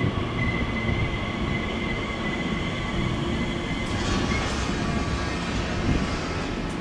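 Elizabeth line Class 345 Aventra electric train moving along the platform: a steady rumble of wheels on rail under a constant high electric whine. About four seconds in, a hissing, higher-pitched sound joins in.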